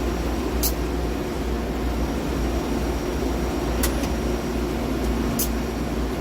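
Miyano BNX-51MSY CNC turning center running a dry cycle with no cutting: a steady machine hum with three brief high hisses.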